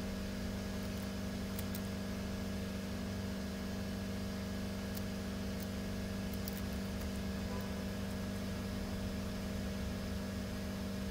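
Steady low machine hum with several fixed tones, with a few faint short clicks.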